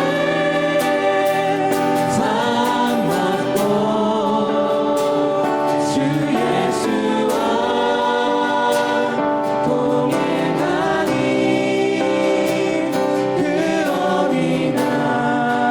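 A group of voices singing a worship hymn together, with sustained notes and steady accompaniment.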